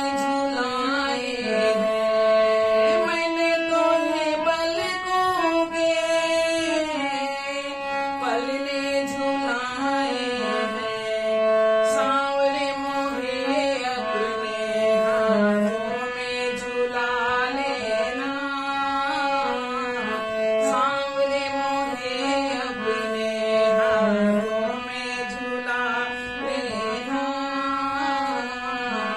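A woman singing a Hindi devotional bhajan with her own harmonium accompaniment; the harmonium holds steady notes under the voice's gliding melody.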